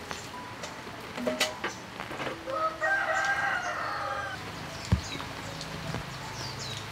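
A rooster crowing once, one long call of about two seconds starting about two and a half seconds in. Several sharp knocks come before and after it.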